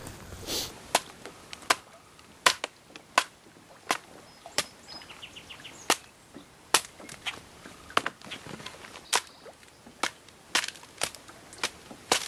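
Sharp, irregular wooden cracks and knocks, about one or two a second, as a damp dead branch is chopped and carved at to strip its wet bark for firewood. Faint bird chirps in the background.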